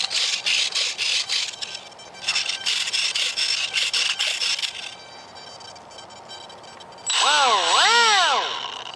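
Small electric motor and propeller of a micro RC batwing flying wing whirring in two bursts, about two seconds and two and a half seconds long. Near the end, a separate loud whine wavers in pitch, dipping and rising twice over about a second and a half.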